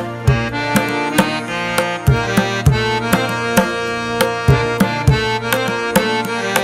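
Background music: a melodic instrumental with tabla-like hand-drum strokes keeping a steady beat.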